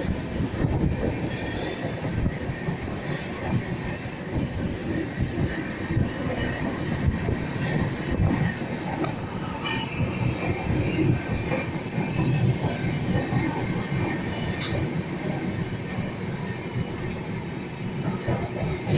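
Jnaneswari Express passenger train running, its wheels rumbling steadily on the track, with a few sharp clicks.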